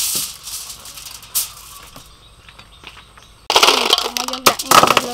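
Aluminium foil crinkling as it is spread and smoothed on a table, fading to quiet. About three and a half seconds in, loud crackling and clattering begins as clams in chili sauce are tipped from a steel bowl onto the foil.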